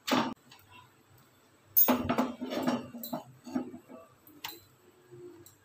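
Light clicks and knocks of kitchen handling as a thin round of rolled wheat dough is laid onto a flat non-stick tawa. The loudest is a sharp knock about two seconds in, followed by scattered small taps.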